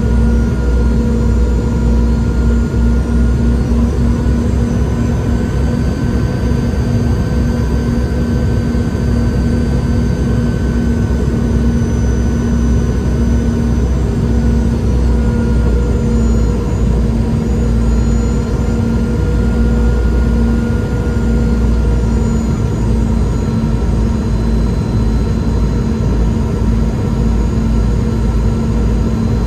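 Rear-mounted Rolls-Royce BR715 turbofan of a Boeing 717-200 running on final approach, heard from inside the cabin at a seat beside it: a steady roar with a deep drone and a few steady whining tones that waver slightly in pitch.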